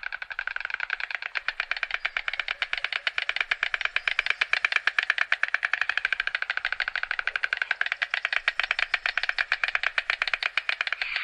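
White stork clattering its bill: a long, rapid, dry rattle of bill strikes that builds over the first couple of seconds and then holds steady.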